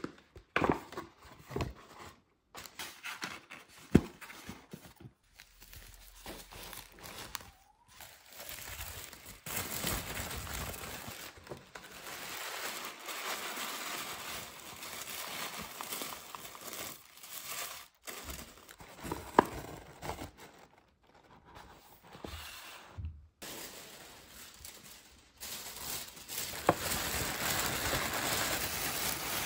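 Tissue paper rustling and crinkling as it is handled and tucked into kraft-paper gift bags, in irregular spells with short quiet gaps. A couple of sharp knocks stand out, about four seconds in and again around nineteen seconds.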